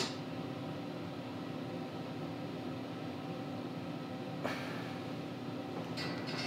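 Steady low hum of room or machine noise, with a faint click about four and a half seconds in.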